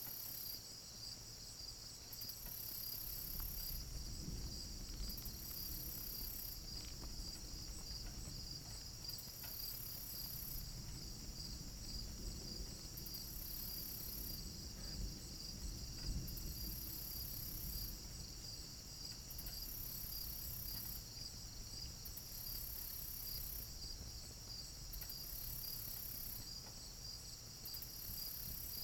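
Crickets and other night insects chirping steadily, with a higher insect buzz that comes and goes every few seconds. A low rumble of distant thunder swells about four seconds in and fades after about fifteen seconds.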